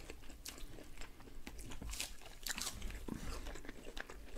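Close-up crunchy chewing of fresh cucumber, with many short crisp clicks scattered throughout.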